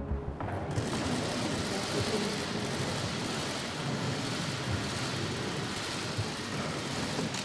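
Dense, rain-like patter of many press camera shutters clicking at once, with the hubbub of a crowded room.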